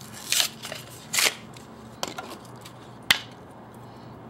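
Handling of a new Champion spark plug and its small packaging: a few short scraping rustles, then a single sharp click about three seconds in.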